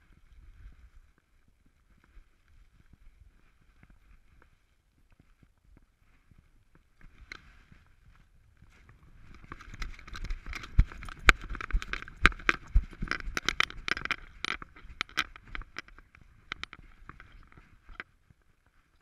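Handling noise on a camera strapped to a walking Alaskan malamute's back: a dense run of clicks, knocks and scrapes from about nine seconds in until near sixteen seconds, over faint steady noise.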